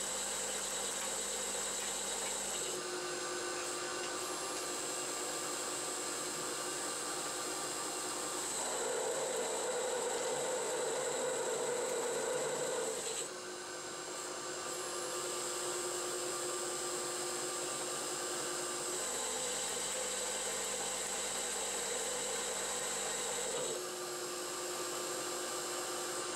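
CNC-converted 9x20 benchtop metal lathe running its program: the spindle turns steadily while the axis motors drive the tool through its moves, with a steady whine whose pitch changes every few seconds as one move gives way to the next. The sound is louder for a few seconds from about nine seconds in.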